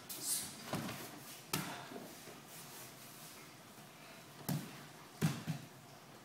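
Aikido breakfall and pin on a padded mat: a few short thumps and rustles of gi cloth as the partner is thrown down and held, with the louder ones about a second and a half in and twice around five seconds in.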